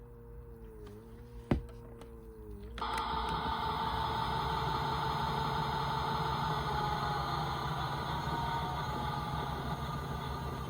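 Toy washing machine running: first a faint wavering motor hum, then a sharp click about a second and a half in. Just under three seconds in, a louder steady motor whirr with a low rumble starts and keeps going.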